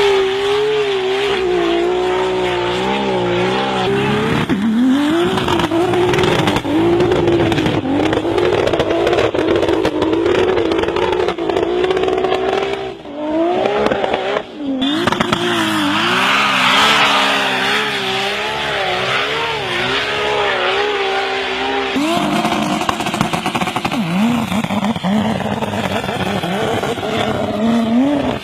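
Modified high-horsepower Jeep engine running hard at high revs, its pitch wavering up and down as the throttle works, with two brief drops in the middle and a sudden shift in the note near the end.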